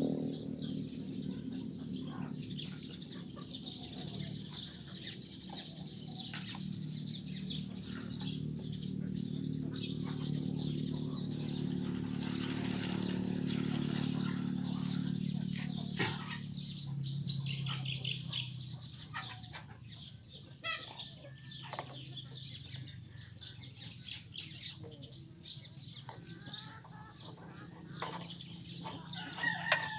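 Diesel poured into the fuel tank of a Kubota ER65 engine: a steady pouring for about eighteen seconds that then tapers off and stops.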